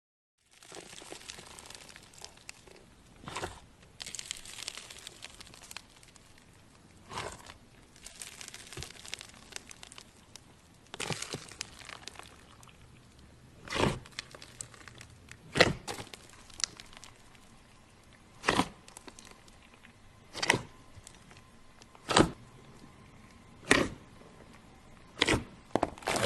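Slime being squished and stretched by hand: a crinkly, crackling texture, then from about halfway on a run of sharp single pops every second or two.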